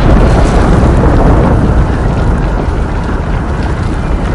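Storm or earthquake sound effect: a loud, continuous deep rumble over a hiss like heavy rain, easing off slightly.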